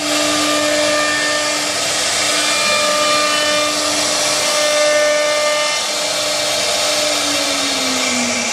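CNC router spindle running at high speed, its cutter routing a groove into a wood panel: a loud, steady whine over the rasp of cutting. Near the end a lower tone slowly falls in pitch.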